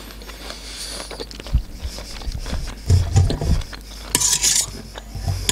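Close-miked chewing of a mouthful of canned sweet corn, then a metal fork scraping and clinking on a metal serving tray as kernels are scooped up, about four seconds in.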